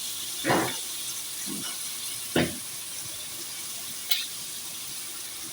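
Chopped chicken and vegetables sizzling in oil in a frying pan, with a few short knocks and clinks of utensils against the pan, the sharpest about two and a half seconds in.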